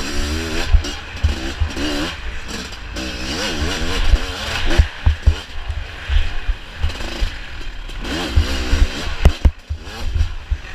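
Off-road dirt bike engine revving up and down over and over, its pitch rising and falling with the throttle, with frequent low thumps underneath.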